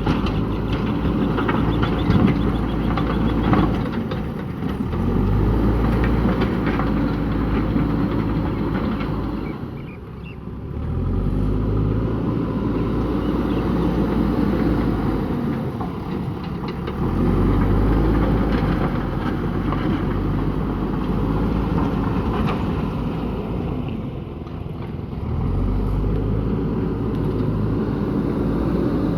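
JCB backhoe loader's diesel engine working, its speed rising and dropping back every five or six seconds, with a few short knocks in the first few seconds.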